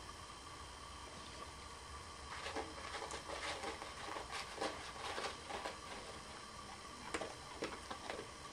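A dog's mouth working at something on the carpet: a run of small, irregular clicks and smacks starting about two seconds in, a few more near the end, over a steady faint hum.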